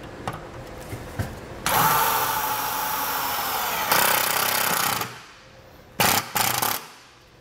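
Cordless impact driver running a self-tapping screw into the car's sheet-metal underbody. It makes one run of about three seconds, then two short bursts near the end to snug the screw down.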